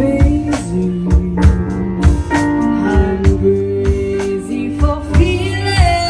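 A live band playing an instrumental passage: guitar and sustained notes over a drum kit keeping a steady beat, with a bending, sliding lead note near the end.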